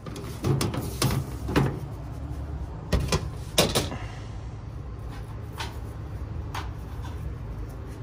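Sharp knocks and clanks of sheet metal as the access panels and wiring compartment of a rooftop package heat pump are handled, about five loud ones in the first four seconds and a few fainter ones later. A steady low hum runs underneath.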